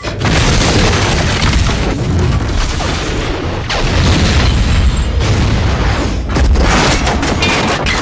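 Film sound effects of a freight train derailing: a dense, loud run of explosions and booms with heavy crashing impacts, one after another.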